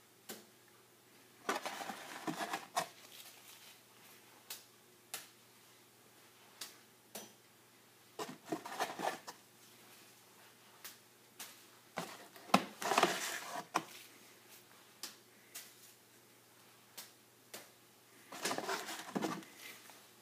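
Used tea bags landing and slapping on a laminate kitchen worktop: scattered single taps and clicks, with four short clusters of denser splats a few seconds apart.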